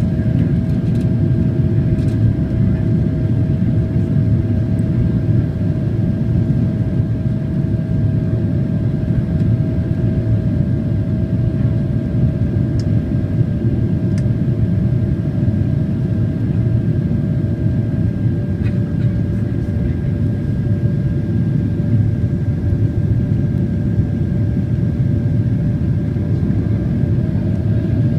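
Cabin noise of a Boeing 767-400ER airliner on final approach with its flaps fully extended: a steady rumble of airflow and engines, with a constant whine held over it.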